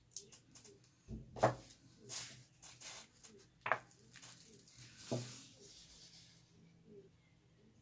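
Knocks and clicks of a paint bottle and its cap being handled on a tabletop, the loudest a little over a second in. About five seconds in, a knock is followed by a short rustle of a sheet of mixed media paper being lifted.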